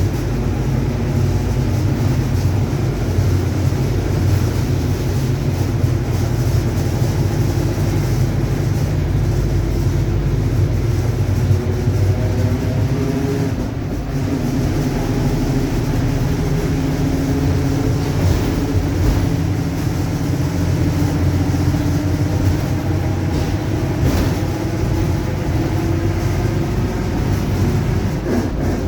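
Mercedes-Benz OF-1721 BlueTec5 bus under way, heard from inside: a steady low rumble from its four-cylinder turbodiesel, with a growling whine from the rear differential. After a brief dip in loudness about halfway through, the whine climbs steadily in pitch as the bus gathers speed.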